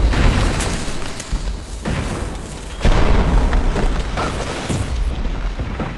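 Aftermath of a bomb blast inside a hotel: a heavy low rumble with debris crashing and falling. Fresh crashes come about two and three seconds in, then the noise dies away near the end.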